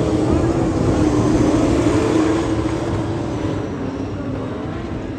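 Dirt modified race cars' V8 engines running hard around the track. The sound is loud at first and fades gradually after about two and a half seconds as the cars pull away.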